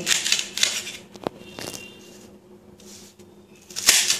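Kitchen knife slicing through a bundle of okra pods on a plate: a few short, crisp cutting strokes, with a sharp knock about a second in and the loudest cut near the end.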